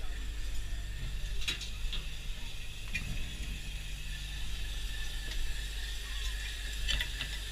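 Small fishing boat's engine and longline hauling gear running steadily, with a few sharp clicks and knocks from the gear as the line comes aboard.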